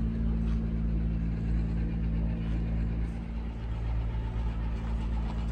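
An engine running at a steady idle: a low, even hum that does not change.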